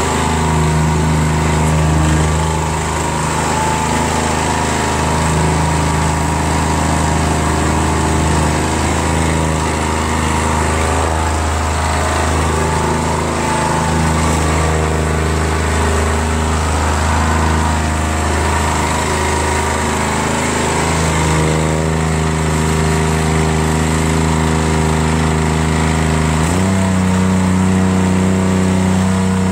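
Brand-new Harbor Freight Predator 212cc single-cylinder engine running steadily through its break-in run. Its speed steps up abruptly near the end.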